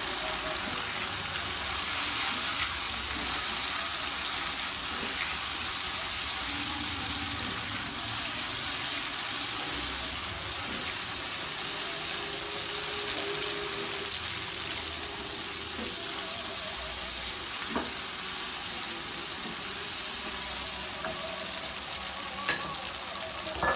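Chopped onions, tomato purée and green chillies sizzling steadily in hot oil in a non-stick frying pan, stirred with a plastic slotted spatula. There is a short knock near the end.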